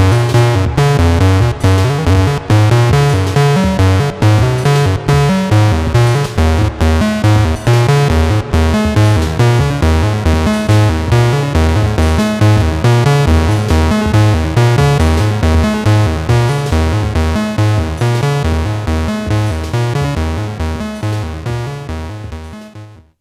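Eurorack modular synthesizer patch built around the After Later Audio bOSC triangle-core oscillator, playing a fast sequenced pattern of pitched synth notes over a strong repeating bass. It fades out over the last several seconds and stops near the end.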